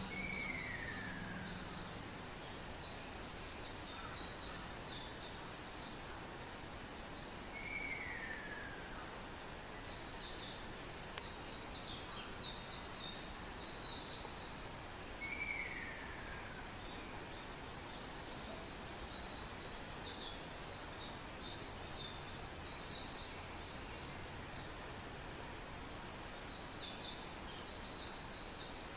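Ruddy kingfisher calling three times, each a falling, rolling trill about a second long, some seven seconds apart. Over it come several bursts of rapid high-pitched notes, each lasting a few seconds.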